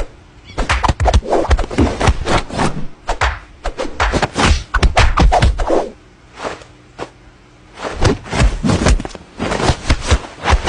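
Rapid, irregular series of knocks and thuds, with a pause of about two seconds past the middle.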